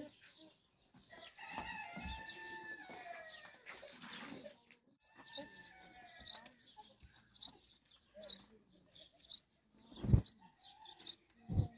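A rooster crowing: one long call starting about a second in, followed by fainter clucking calls. Two dull thumps near the end.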